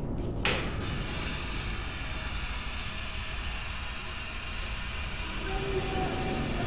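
A sink tap turned on about half a second in, then water running steadily into the basin with a low rumble underneath.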